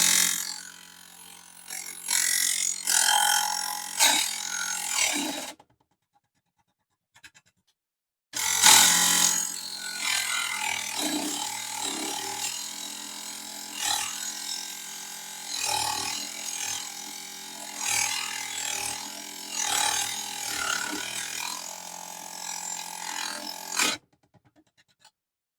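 Mini table saw running and cutting small aluminium channel: a harsh, hissing cut over the motor's steady hum that swells and eases every couple of seconds as the piece is fed through. It stops abruptly twice.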